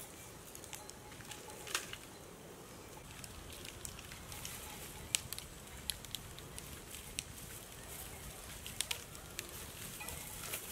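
Small wood campfire crackling, with sharp pops and snaps scattered irregularly over a steady low hiss.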